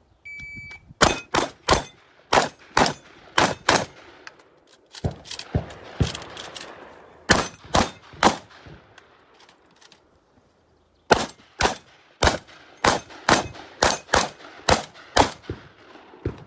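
A shot timer's electronic start beep, then a semi-automatic Benelli M2 shotgun firing shot after shot in quick strings a few tenths of a second apart. There is a short break before a last fast string.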